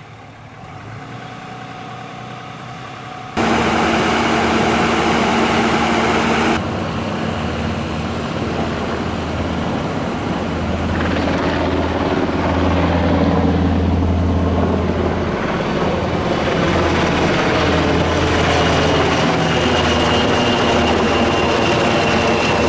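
Vehicle engines running in the street, then from about the middle on, a Los Angeles County Fire Sikorsky S-70 Firehawk helicopter's rotor beating overhead, its pitch sweeping as it passes. The helicopter is the loudest sound.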